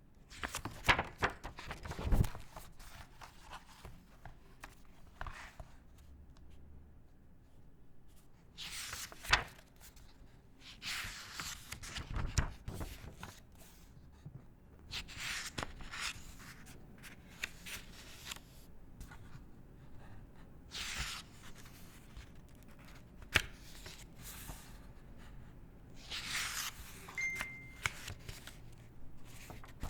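Paper being handled: a series of rustles and crinkles a second or two long as sheets are moved, folded and crumpled, with sharp snaps and crackles between them.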